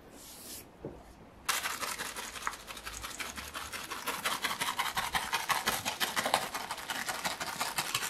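Electrolysis rust-removal bath fizzing: a dense crackle of gas bubbles streaming off the submerged rusty steel and popping at the water's surface, starting suddenly about a second and a half in. The fizzing shows that current from the power supply is flowing through the bath.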